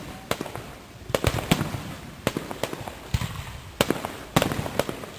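Fireworks going off: about a dozen sharp bangs at uneven spacing, with crackling between them.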